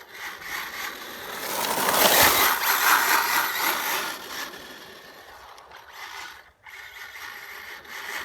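HPI WR8 Flux RC rally car's electric drivetrain whining, with its gears and tyres on wet tarmac, growing loud about two seconds in as the car runs close, then fading away.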